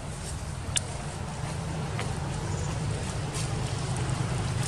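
Low steady rumble of a running engine that grows a little louder after a second or so, with two faint sharp clicks.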